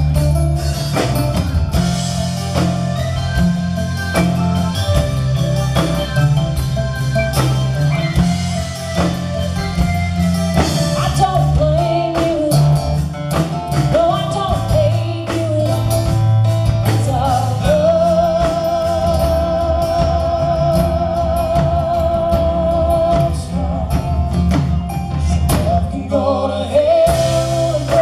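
Live country band performance: a female lead vocal over strummed acoustic guitar, bass and drums, with a long wavering held high note about two-thirds of the way through.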